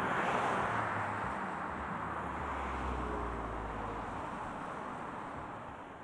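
Street traffic passing by: tyre and engine noise that swells at the start and slowly fades away, with a deeper low rumble of a passing vehicle in the middle.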